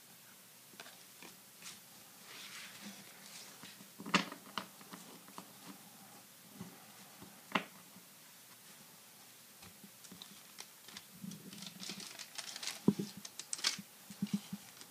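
Hands handling a stack of 1991-92 Upper Deck basketball cards: soft rustling and sliding of card stock with scattered sharp taps, the sharpest about four and seven and a half seconds in, and a busier run of taps and rustle near the end.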